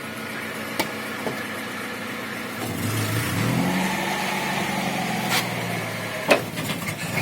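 Suzuki Grand Vitara running, its engine rising in pitch about three seconds in and then holding steady. Several sharp knocks sound over it, the loudest about six seconds in: the knock in the rear axle.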